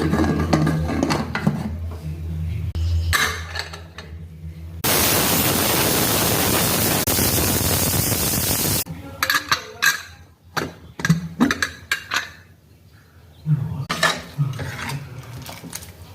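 Kitchen utensils and a pot being handled and stirred, with scattered clinks and knocks. A loud, even hiss starts about five seconds in and lasts about four seconds, then cuts off.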